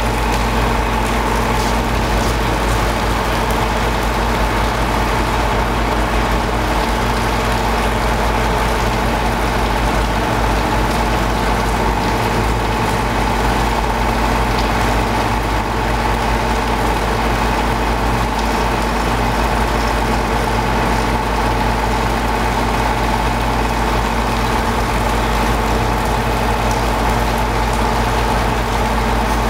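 Steady drone of heavy machinery running at the worksite: a low hum with a fixed whine over it, unchanging.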